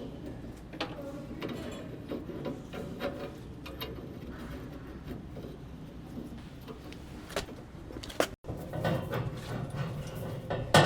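Scattered clicks and light knocks of plumbing pipes and fittings being handled and fitted together, with the sound cutting out briefly about eight seconds in.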